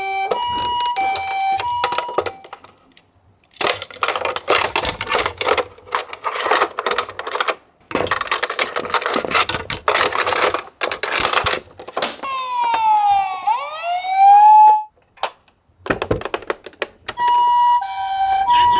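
Toy ambulance electronic sirens. A two-tone hi-lo siren alternates at the start and returns near the end. Between them come several seconds of rapid plastic clicking and clattering, then a brief electronic wail that falls and then rises.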